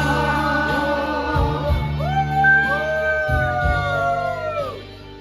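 Background pop music: a long held sung note that slides up about two seconds in and falls away near the end, over bass and a steady beat.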